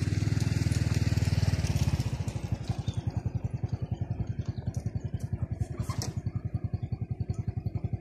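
A small step-through motorcycle's engine running close by with a rapid, even putter. It is louder for the first two seconds as the bike pulls up, then settles into a steady idle.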